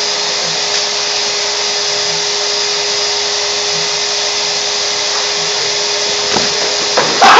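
Vacuum cleaner running steadily, drawing air through a long PVC pipe: a rushing hiss with a steady hum. Just before the end the noise suddenly gets much louder.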